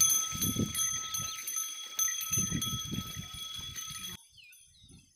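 Bullock bells jingling steadily over low irregular thuds, cutting off abruptly about four seconds in.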